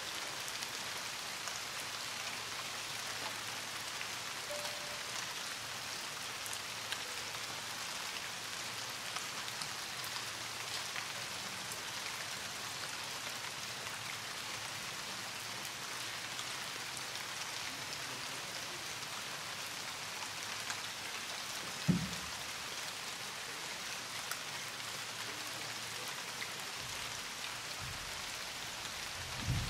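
Steady rain falling, with one short low thump about three quarters of the way through.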